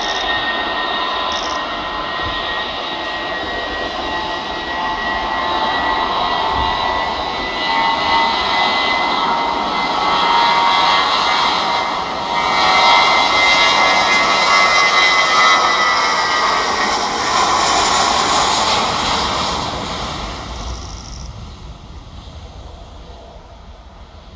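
Airbus A320-232 jet airliner's IAE V2500 turbofans at takeoff thrust on the takeoff roll: a steady engine whine over a broad roar that grows louder, is loudest through the middle, then fades over the last few seconds as the jet moves away.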